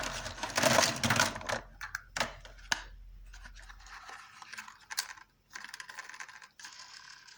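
Small toys and their packaging being handled: a loud rustling scrape for the first second or so, then scattered sharp clicks and rattles with lighter scratching between them.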